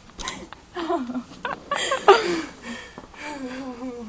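A woman's wordless voice: short exclamations and breaths, then a drawn-out, wavering "ohhh" over the last second.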